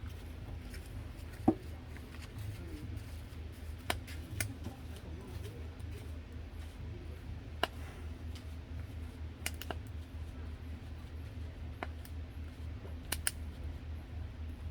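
Sparse sharp clicks and snips of eating or cooking utensils, about eight over the span with the loudest about a second and a half in, over a steady low hum.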